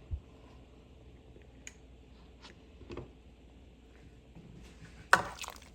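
Quiet kitchen with a few light taps and clicks from cookware being handled, then a sharp clatter about five seconds in.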